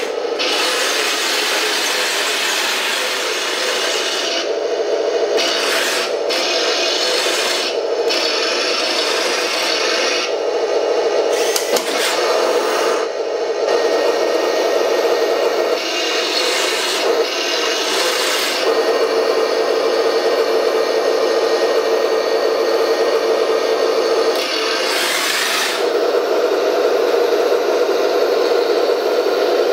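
Radio-controlled model tanks with full-metal tracks and gearboxes driving on a wooden floor: a steady whine of the drive motors and gears with the rasping scrape of the metal tracks on the wood, which eases off briefly several times as the tank stops and turns.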